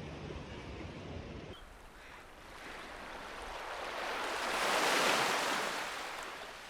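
A rush of water noise that swells to a peak about five seconds in and then fades away, after a lower rumble that cuts off about one and a half seconds in.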